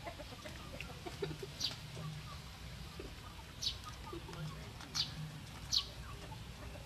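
Caged quails calling: four short, high chirps that fall in pitch, spread over several seconds, with low clucking underneath.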